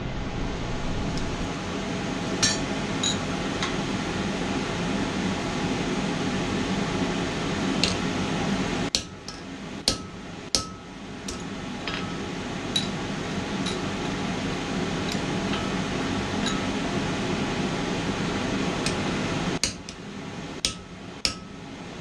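Scattered single hammer taps and clinks of steel on an anvil, each with a short metallic ring, about a dozen, irregularly spaced, over a steady rushing noise with a low hum.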